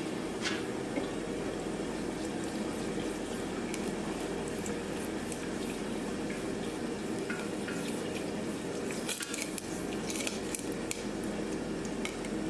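Light metallic clinks and scrapes over a steady hum, coming thickest about nine to eleven seconds in.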